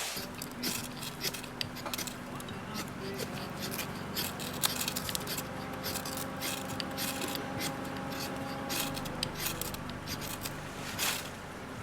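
A steel knife making many short, irregular scraping strokes during campfire preparation, with a sharper scrape about 11 seconds in.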